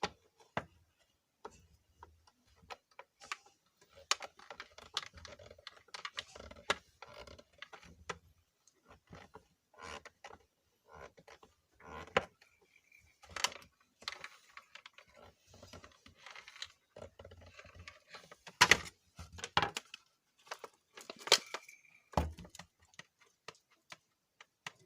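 Irregular clicks and knocks of a screwdriver and the plastic mixer-grinder body being handled while the motor's mounting screws are tightened, with a few sharper knocks in the last third.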